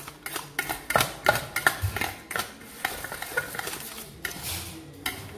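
A spoon stirring chopped green chillies and salt in a stainless steel bowl, with irregular clinks and scrapes of the spoon against the metal, several a second.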